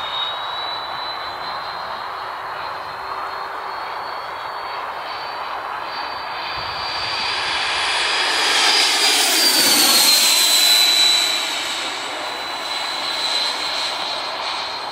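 Electric ducted fan of a radio-controlled F-16 model jet (110 mm Jetfan driven by a Hacker E50 motor on 12S) whining in flight. The whine grows louder to a close pass about ten seconds in, its pitch dropping slightly as the jet moves away.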